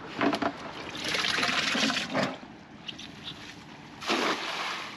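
Water trickling and dripping off a wet cast net as baitfish are shaken out of it, with a short burst of splashing about four seconds in as the thrown net lands on the water.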